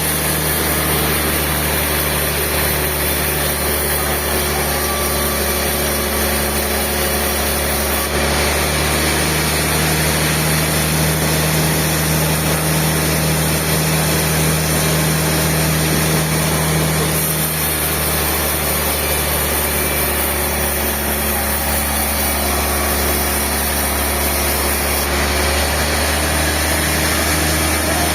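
Sawmill machinery running steadily, a constant engine-like drone with a high hiss, its character changing abruptly a few times.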